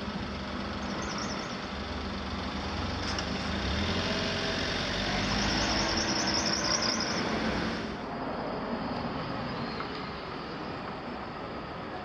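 A passing vehicle, heard as a rumbling wash of noise that swells and then falls off sharply about eight seconds in. A faint fluttering high squeal runs through the loudest part.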